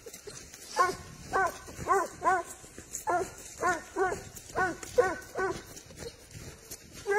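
Spanish hound baying while tracking wild boar scent on the leash: about ten short, ringing barks that rise and fall in pitch, many in quick pairs, with a pause of about a second and a half before one last bark at the end.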